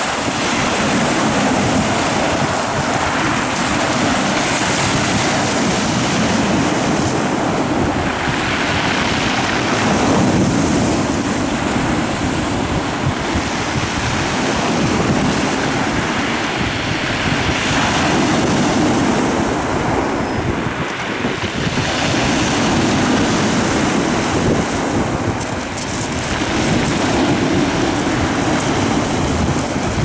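Rough sea surf breaking and washing over a pebble beach, a continuous rushing roar that swells and eases as each wave comes in, with wind on the microphone.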